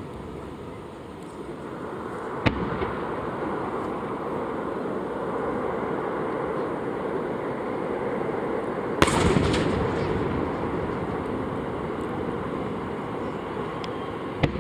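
Aerial fireworks shells bursting, heard from a distance: a sharp bang about two and a half seconds in, a louder one at about nine seconds followed by a short run of smaller cracks, and another bang at the very end, over continuous background noise.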